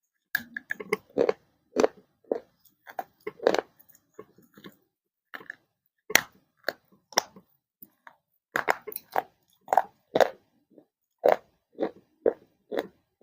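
Dry baked clay pieces being bitten and chewed close to the microphone: sharp, crisp crunches at an uneven pace, with a brief pause about halfway through.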